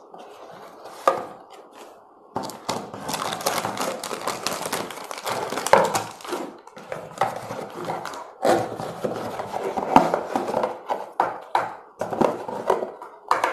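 Plastic packaging crinkling and a cardboard box rustling as bagged plastic toy pieces and clay tubs are handled and pulled out, with irregular clicks and a few sharper knocks.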